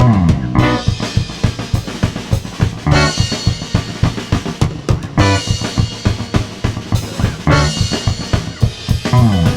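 Instrumental prog rock passage: a busy drum-kit groove over bass and other instruments, with a falling pitched swoop recurring about every two to three seconds.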